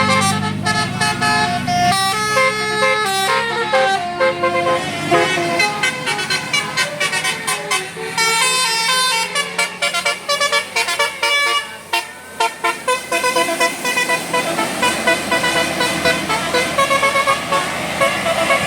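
Bus 'telolet basuri' musical horn playing a tune of quickly changing notes, a run of short staccato notes in the middle, with a low engine hum under the first couple of seconds.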